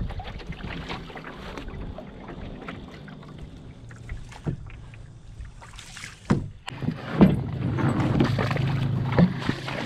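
Aluminum canoe moving through the water with small waves lapping against the hull. About six seconds in come a few sharp knocks and one loud thump as the hull reaches the rocky shore, then water sloshing in the shallows.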